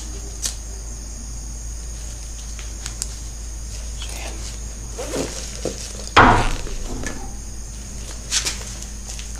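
Steady high chirring of night insects, with a few faint clicks of handling and one loud rustling knock about six seconds in.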